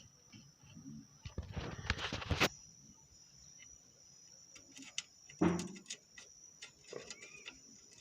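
Metal parts clinking and scraping as a bolt and washer are fitted into the leaf spring mount under the car. There is a rattling stretch ending in a sharp click about two and a half seconds in, a short low knock about five and a half seconds in, and scattered light clicks. A steady high-pitched whine sits underneath.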